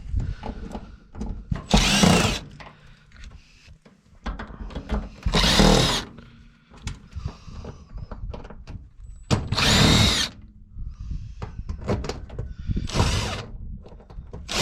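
Power drill spinning in several short bursts, roughly every three to four seconds, each a brief whir that rises and falls in pitch, as fasteners are driven out of an electric range. Knocks and rattles of handled metal parts come between the bursts.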